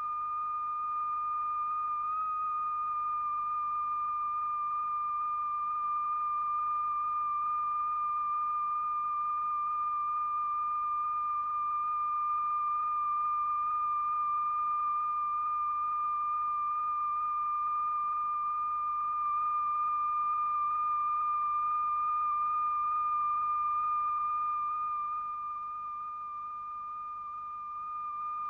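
A steady, high-pitched pure tone with a faint overtone an octave above. It is the test tone exciting a vibrating diaphragm strewn with lycopodium powder. The pitch wavers slightly about two seconds in, and the tone drops a little in loudness near the end.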